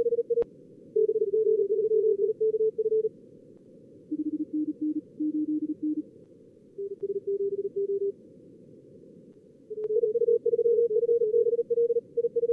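High-speed Morse code (CW) from SkookumLogger's simulated contest practice mode, keyed at about 45 words per minute. Short runs of on-off tones at a few different pitches, from the two radios and the simulated callers, alternate with gaps over a narrow band of receiver hiss. A sharp click comes about half a second in.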